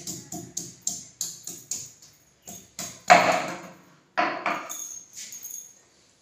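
Garlic cloves being pounded with a wooden pestle on a wooden board, about three knocks a second, with her metal bracelet jingling on each stroke. The pounding stops about two seconds in, followed by a louder scrape and a couple of knocks as the crushed garlic is gathered off the board.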